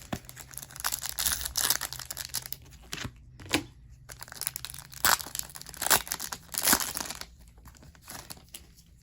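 Foil trading-card pack wrapper being torn open and crinkled, in irregular rustles with several sharp crackles, quieter for the last couple of seconds.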